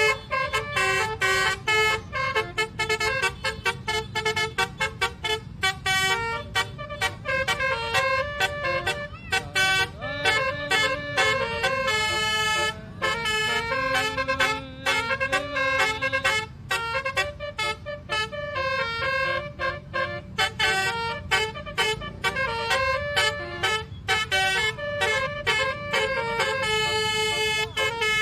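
Basuri telolet bus horn, a multi-tone horn, playing a quick tune of short notes that change pitch, with a steady low rumble underneath.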